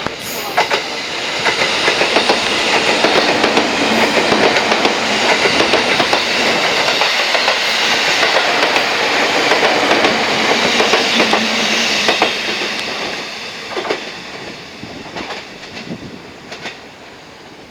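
Electric train passing at speed, its wheels clattering over the rail joints. It builds up over the first second or so, stays loud for about ten seconds, then fades away with a few last clacks.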